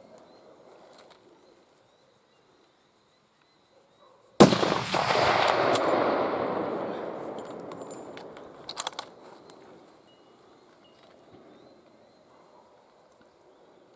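A single rifle shot about four seconds in, its boom trailing off in a long fading echo over about four seconds, followed by a few sharp clicks. The shot drops a young fallow deer.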